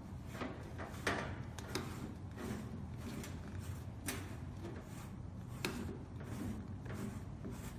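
Irregular knocks, clicks and rubbing as the sink's drain pipe fittings are handled and fastened to the underside of the sink inside the cabinet.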